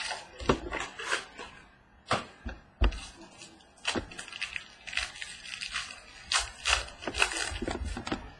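Clear cellophane wrapper crinkling and crackling as it is torn off a trading-card mini box and the box is opened, in a rapid, irregular run of sharp rustles.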